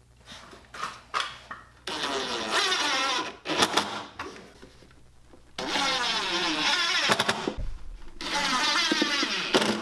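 A power tool's motor running in three short bursts of about a second and a half each, with a few light clicks before the first.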